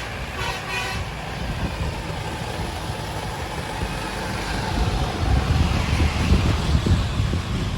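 A bus's multi-tone telolet horn sounds its last couple of short notes in the first second. Then a heavy vehicle's low engine rumble and road noise take over, growing louder about five seconds in as it passes close.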